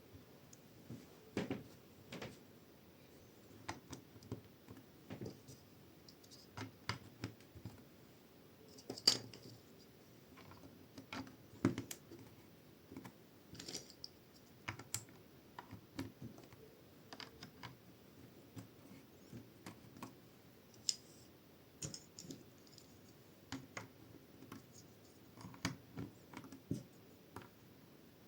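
Plastic LEGO bricks being handled and pressed together: faint, irregular clicks and taps, a few each second.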